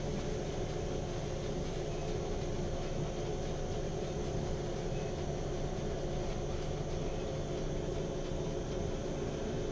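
Class 455 electric multiple unit running steadily, heard from inside the passenger carriage: a continuous rumble of wheels on the rails with a steady hum over it.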